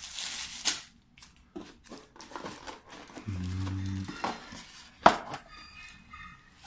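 Plastic bag rustling and a takeout clamshell box being handled and pried open, with scattered small clicks and one sharp snap a little after five seconds as the lid comes free.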